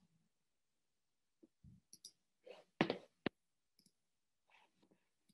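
Faint, sparse clicks and light knocks of a computer mouse and keyboard being worked at a desk, the loudest a short clatter about three seconds in followed by a sharp click.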